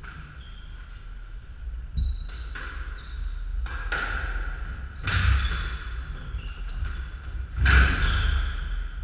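Squash ball smacking off rackets and the court walls in a rally, about half a dozen sharp echoing strikes, the loudest two about five seconds in and near the end, with short high squeaks of court shoes on the wooden floor between them.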